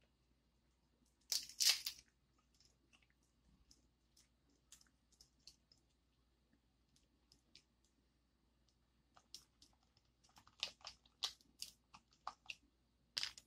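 Baby king crab shell being cracked and pulled apart by hand: a loud crunch about a second and a half in, scattered small snaps, then a quick run of sharp cracks near the end.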